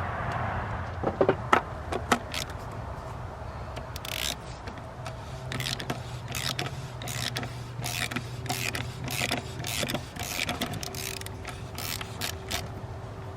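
Socket ratchet clicking in short runs as it unscrews the plastic canister oil filter housing cap of a 3.6-litre Pentastar V6, after a few sharp knocks about a second in.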